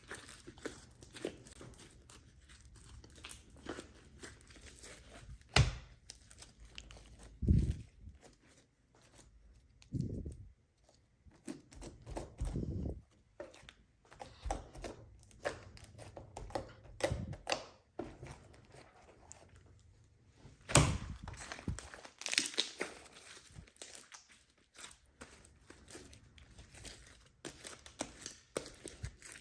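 Hands working with slime-making materials: irregular small clicks and rustles, with several louder soft thuds spread through.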